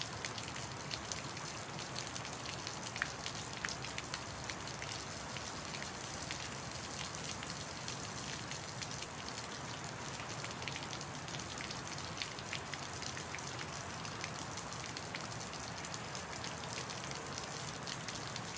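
Recorded rain ambience: a steady hiss of rain with many fine crackling drop ticks, at an even level.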